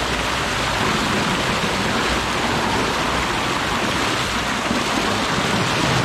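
Small waterfall pouring into a rocky plunge pool: a steady rush and splash of falling water.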